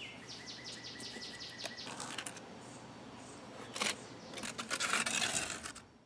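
Quiet outdoor ambience with a bird giving a quick run of repeated chirps, about six a second, for the first two seconds. A sharp knock follows about four seconds in, then a run of scraping, tapping sounds near the end from a tool working furnace cement into the refractory bore of a small furnace.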